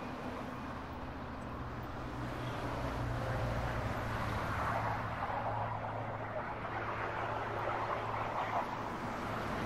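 Street traffic noise: a vehicle engine running steadily under a wash of road noise, swelling slightly a few seconds in.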